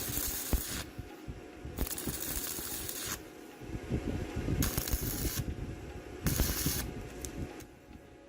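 Short bursts of pressurized spray hissing, four in all, each under about a second and a half, with light knocks and clinks of small metal parts in between.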